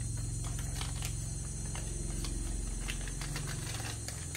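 Clear plastic bag being handled, crinkling and rustling in short irregular bursts, over a steady low motor-like drone that eases off near the end.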